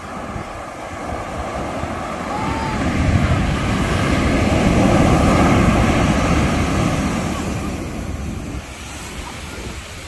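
Big ocean waves breaking on a sandy beach. The surf noise swells into a loud crash about three seconds in, holds for several seconds, then fades as the foam washes up the sand.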